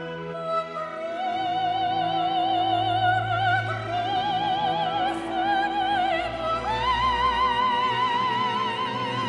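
Operatic singing with wide vibrato over orchestral accompaniment, the voice holding long notes and stepping up to a higher sustained note about two-thirds of the way through.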